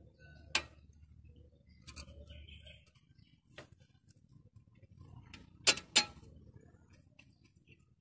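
Sharp metallic clicks and taps of hand tools on engine fittings, as the high-pressure fuel lines are refitted to the diesel injectors. There are scattered single clicks, with the two loudest close together near the six-second mark, over a faint low rumble in the first few seconds.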